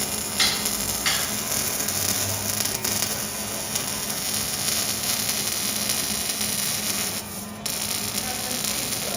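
Steady hiss with a low hum, and two short clicks about half a second and a second in.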